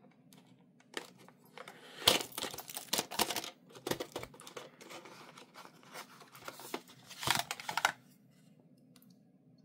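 Paper crinkling and rustling as a folded paper swatch card is handled and pulled free, with small clicks in between. The sound comes in two louder stretches, about two seconds in and about seven seconds in.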